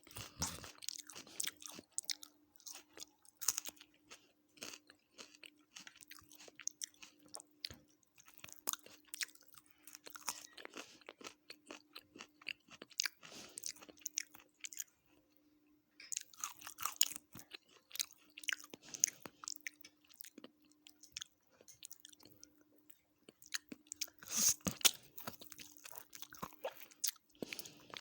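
Close-miked eating: wet chewing and crunching of mouthfuls of chicken biryani and salad, in irregular bursts with a short pause about halfway. A faint steady hum runs underneath.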